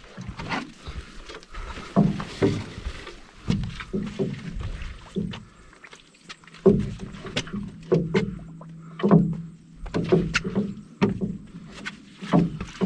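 Canoe being paddled: repeated paddle strokes about once a second, each a splash with a sharp knock.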